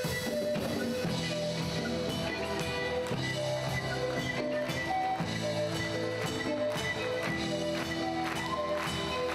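Live Andean-rock fusion band playing: pan flutes carry held notes over a steady drum-kit beat, electric bass and electric guitars.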